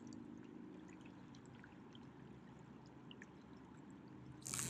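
River current flowing and trickling faintly and steadily, with scattered small ticks. Near the end comes a brief, loud rushing hiss.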